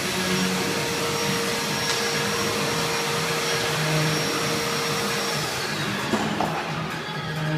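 Steady, loud rushing whir of a motor-driven blower, like a vacuum cleaner, with a high whine that slides down in pitch and fades about five and a half seconds in. A couple of short knocks come around six seconds in.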